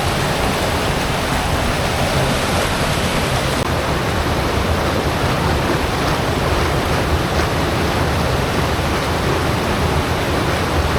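Waterfall on a river, its falling water making a loud, steady rush.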